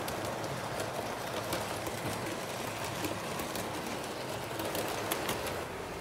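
Model train running on its track: a steady rolling rattle with frequent irregular sharp clicks. It drops a little in level and dulls slightly near the end.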